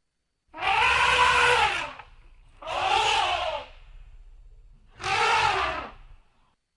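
A human voice imitating a woolly mammoth: three separate calls, each about a second long, that rise and then fall in pitch, spaced roughly two seconds apart.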